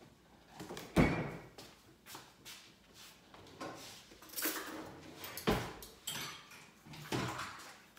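Kitchen handling noises: a sharp knock about a second in as a plastic bottle of coffee creamer is set down on the table, then several lighter knocks and clatters, like doors or cupboards being moved.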